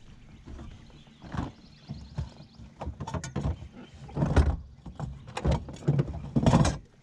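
Irregular knocks and thumps of handling on a bass boat, as a freshly landed bass and the gear are moved about to weigh the fish. The loudest thumps come about four and a half and six and a half seconds in.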